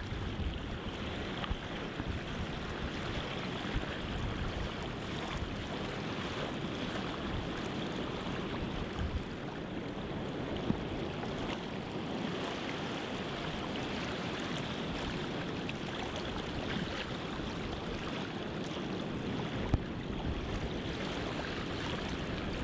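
Steady rush of wind and water heard from aboard a boat under way, with a faint knock or two.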